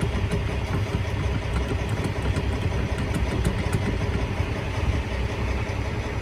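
Kenworth T2000 truck's diesel engine idling steadily.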